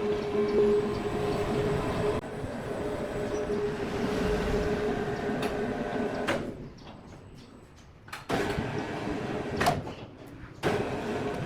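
Large sawmill machinery running with a steady hum and rumble. The sound drops away abruptly twice and comes back.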